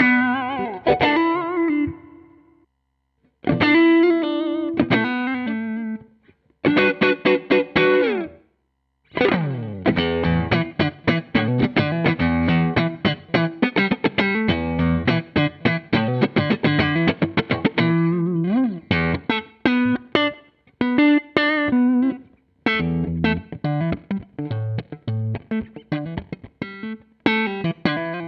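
Fernandes electric guitar played through a Hotone Ampero One multi-effects processor: short phrases with brief pauses, then a long run of quickly picked notes.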